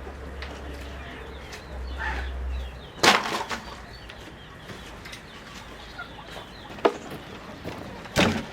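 Chickens clucking, broken by three sharp knocks: the loudest about three seconds in, another near seven seconds, and one near the end. A low hum underneath stops a little before the first knock.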